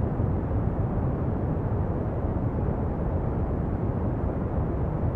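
Steady pink noise: an even, deep hiss with no tones in it, strongest in the low end.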